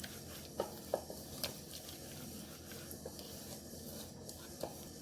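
Hands mixing a wet spice masala paste in a bowl: faint squishing and rubbing, with a few small clicks.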